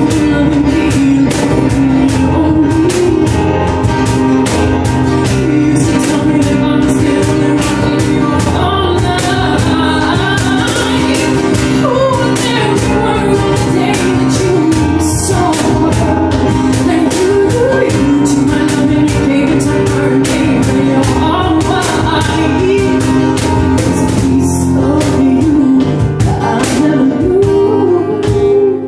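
Live acoustic pop band playing a song: a woman singing lead over a Roland FP-7F digital piano, with acoustic guitar and a steady hand-percussion beat.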